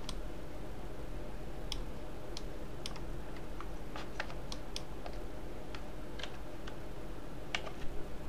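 Computer keyboard keys and mouse buttons clicking while shortcuts are entered: about fifteen short, scattered clicks, a few in quick pairs, over a steady low hum.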